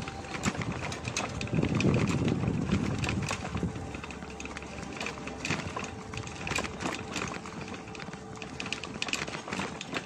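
Cruiser bicycle riding over a rough dirt track: frequent clicks and rattles from the bike and tyres on the ground, with a louder low rumble about two seconds in.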